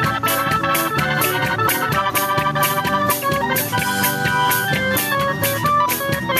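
Band music: an organ and a drum kit playing an instrumental passage with a steady beat.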